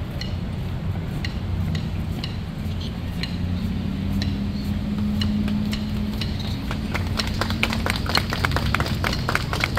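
A military band marching between tunes. Sharp clicks come about twice a second over a low, steady rumble, and the clicking turns fast and dense over the last few seconds.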